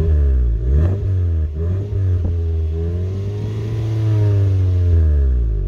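Suzuki Alto's R06A 660 cc three-cylinder engine revved through its stock, catalytic-converter exhaust. It gives a couple of quick blips, then a longer, slower rise in engine pitch that peaks and falls back toward idle near the end.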